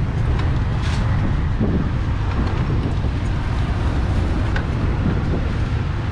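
Steady low rumble of outdoor background noise, with a few faint clicks and faint voices.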